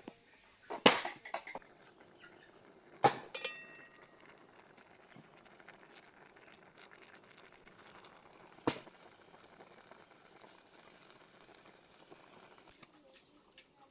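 A few sharp knocks and clatters over a faint steady background: a cluster about a second in, another about three seconds in followed by a brief metallic ring, and a single knock near nine seconds.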